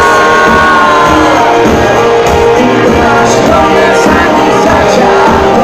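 Live pop-rock band playing loud: electric guitar and drums with a steady low kick beat, and a singer holding a long note that bends slowly over the first second or so.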